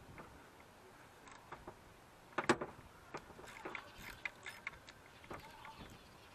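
Irregular light clicks and small clatters of a hand tool and plastic fasteners being worked at the cowl under the windshield, with a sharper clatter about two and a half seconds in.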